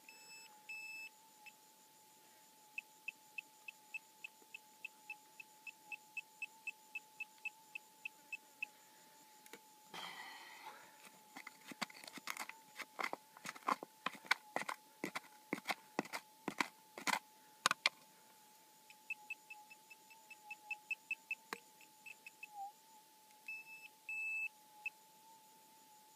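A gold detector's steady threshold hum, with a handheld pinpointer beeping in quick even runs of about three beeps a second as it is probed into a rock crevice, signalling a metal target. For several seconds in the middle, rocks and stones knock and scrape sharply as they are moved by hand, and the pinpointer beeps again near the end.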